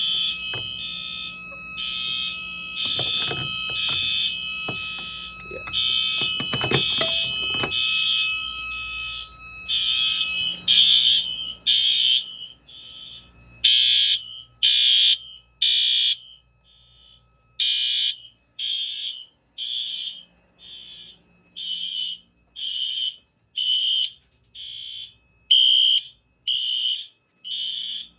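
Fire alarm horns on a home-built fire alarm system sounding after a pull station is pulled, pulsing about once a second. For the first half several devices overlap out of step, with a steady lower tone and some clicking underneath. From about twelve seconds in it settles into single clean pulses.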